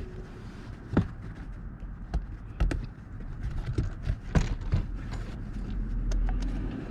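Plastic dashboard trim parts knocking and clicking as they are handled and fitted back into place, several separate sharp knocks at irregular intervals over a low steady rumble.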